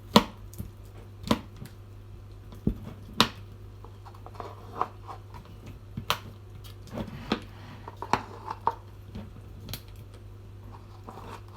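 Scattered short clicks and knocks of kitchen utensils and containers being handled while measuring ingredients, about a dozen in all, the loudest about a quarter of a second in, over a steady low hum.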